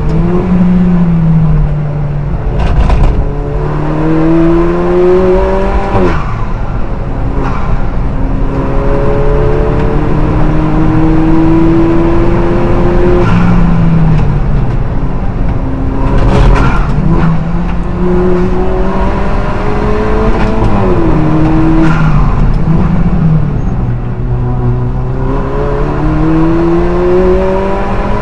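Alfa Romeo 4C race car's turbocharged four-cylinder engine heard from inside the cockpit at racing speed, its pitch climbing through the revs and dropping sharply at each gear change, several times over.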